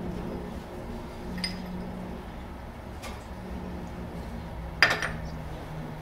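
Steel motorcycle steering stem and metal parts being handled: a couple of faint clicks, then one sharp metallic clank with a brief ring near five seconds in, over a steady low hum.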